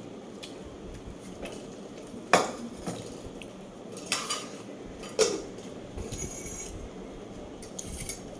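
Eating utensils clinking against a plate or bowl: three sharp clinks, about two, four and five seconds in, with a few lighter taps between.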